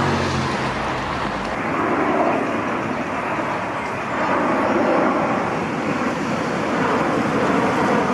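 Steady road traffic noise, an even rushing sound of vehicles with no distinct individual events.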